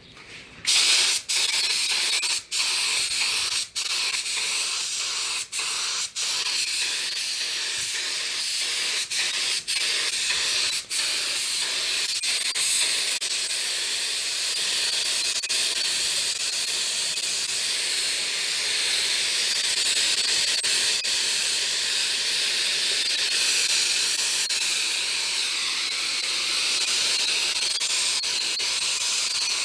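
Compressed air hissing out of an air gun held open, draining the tank of a homemade 100-litre compressor built from two refrigerator compressors. The hiss breaks off briefly several times in the first ten seconds or so, then runs on steadily.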